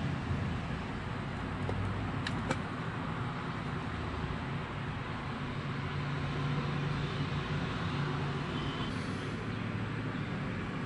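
Steady low background rumble, with two quick light clicks about two seconds in from the buttons of a digital timer being pressed.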